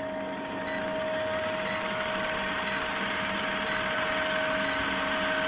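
Film-projector countdown sound effect: a steady mechanical whir and fast rattle with film hiss and a constant hum, and a faint short blip about once a second as the numbers count down.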